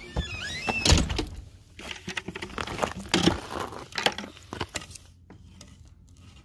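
Footsteps crunching on gravel with irregular knocks and clatter as a baseball bat and a bucket of baseballs are picked up and handled. It is much quieter for the last second or so.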